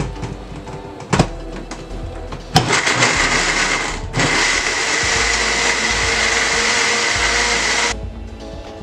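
Countertop blender blending fruit and water. It runs for about a second and a half, stops for a moment, then runs again for almost four seconds before cutting off. Two sharp knocks come just before it starts.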